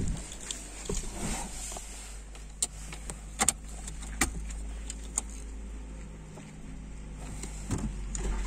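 A few sharp clicks in a car cabin, then a faint steady electrical hum once the ignition is switched on, with the engine not yet running.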